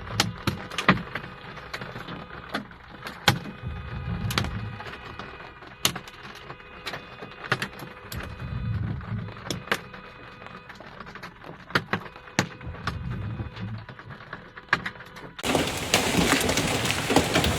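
Irregular sharp cracks and knocks, several a second at times, over low rumbles that come and go. About three seconds before the end they cut off and a loud, even rushing noise begins.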